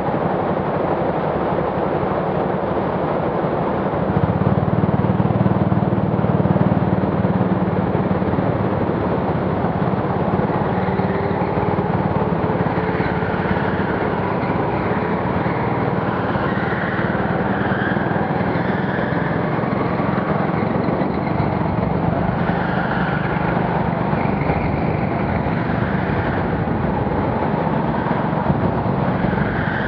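Go-kart running at speed around an indoor track, heard from the driver's seat: a steady mix of engine and tyre noise that is a little louder about four seconds in.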